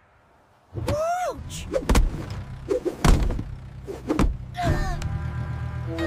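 Cartoon impact effects of a sudden stop in a car: about four heavy thumps roughly a second apart, mixed with short yelping cries, as an unbuckled child is thrown forward. Music comes in near the end.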